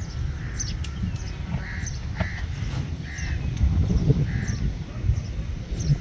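Crows cawing, a series of short harsh caws about one a second, over a steady low rumble.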